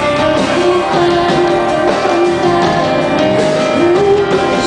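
Live band music: a woman singing long held notes over a rock band with guitar, sliding up into another held note near the end.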